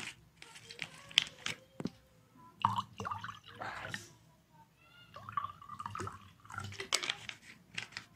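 Liquid poured from a plastic bottle into a glass tumbler, with light clicks and crackles of the plastic bottle being handled.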